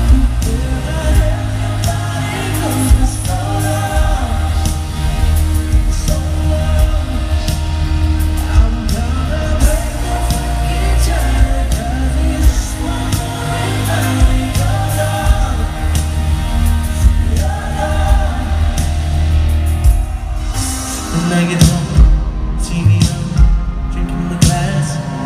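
Live pop ballad from a grand piano and band, with strong bass and a man's singing voice. A little past twenty seconds in, the bass line changes and sharp drum-like hits come in.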